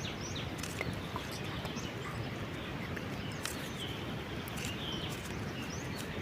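Small birds chirping: short falling chirps repeating every fraction of a second, over steady outdoor background noise, with a few scattered faint clicks.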